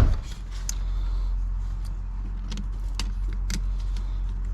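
Metal clicks and clinks from a hose clamp and tools being handled while the clamp is fitted back onto the silicone intercooler tube. A knock comes right at the start, with scattered sharper clicks after it. A steady low hum runs underneath.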